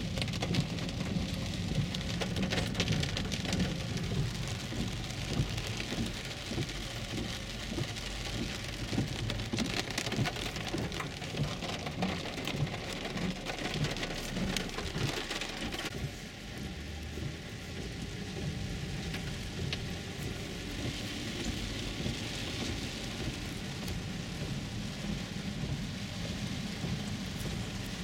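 Heavy rain pattering on the roof and windows of a 2011 Infiniti EX35, heard from inside the cabin over a low rumble of tyres on the wet road. The rain eases a little about halfway through.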